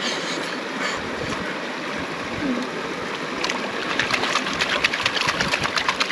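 Creek water running steadily. From about three and a half seconds in, a gold pan being shaken in the water, a quick rhythmic sloshing and rattling of gravel at about five strokes a second.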